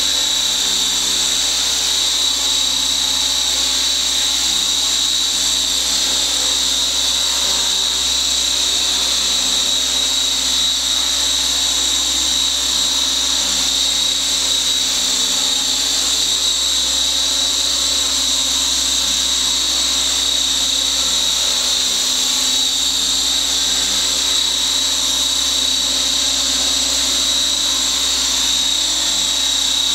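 Skyartec Wasp X3V flybarless electric RC helicopter hovering, its brushless motor and rotor giving a steady high-pitched whine that holds one pitch throughout.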